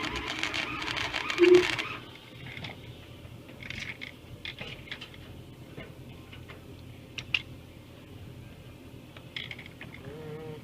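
Flux-core wire welder arc crackling, cutting off abruptly about two seconds in, followed by scattered light metallic clicks and taps.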